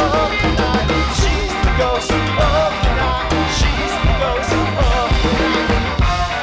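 A live rock band playing a song, with drum kit and guitars under a wavering lead melody line.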